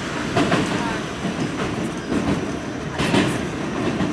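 Interior of an R46 New York subway car running at speed: a steady rumble of wheels on rail, with irregular clacks as the wheels cross rail joints.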